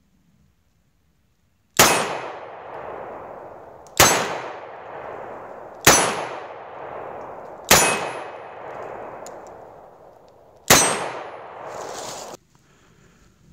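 Five shots from a Smith & Wesson .38 Special revolver firing handloaded rounds. Each shot is followed at once by the clang of a hanging steel plate target being hit, ringing out for a second or two. The shots come roughly two seconds apart, with a longer pause before the last, and the ringing after the fifth cuts off short.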